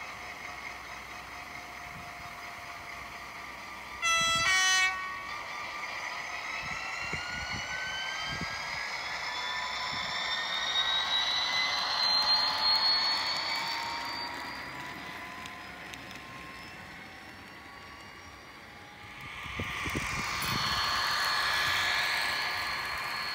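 H0 scale model trains running on track: a steady mechanical whine whose pitch rises over several seconds, with a loud horn blast lasting about a second, about four seconds in. The running gets louder again near the end as the DSB MZ diesel locomotive model passes close by.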